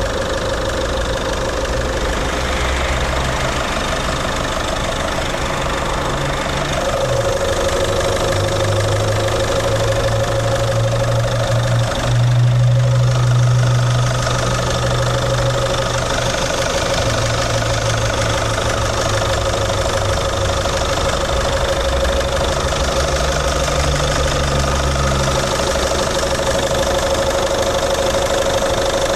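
Peugeot 307 SW's 2.0 HDi FAP 136 hp four-cylinder common-rail turbodiesel idling steadily, briefly a little louder near the middle.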